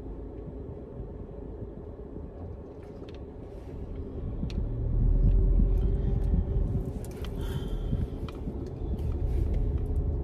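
Engine and road rumble heard from inside a car on the move, getting louder about four seconds in as the car picks up speed.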